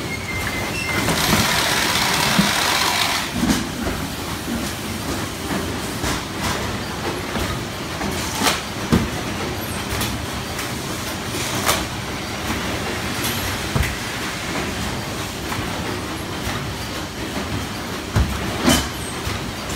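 Packing-line machinery running with a steady hum and rumble. Scattered sharp knocks and clatter come from cardboard cartons being handled, and a loud hissing rush runs from about one to three seconds in.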